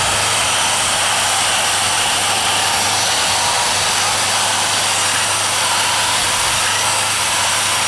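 Electric drill spinning a toothed rotary cutter bit, shaving the soft pith of a split agave stalk with a steady whirring grind.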